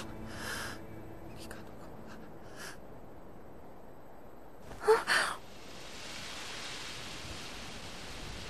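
Breathy gasps from a voice, the loudest a short strained gasp with a rising pitch about five seconds in, then a soft steady hiss.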